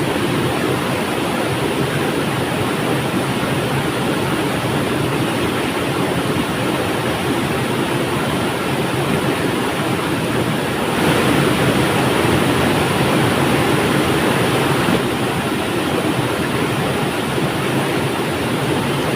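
Flowing river water rushing steadily, with a slightly louder stretch in the middle.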